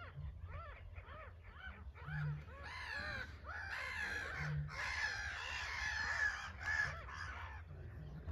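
A crowd of birds giving many short, harsh calls that overlap throughout, over a steady low rumble.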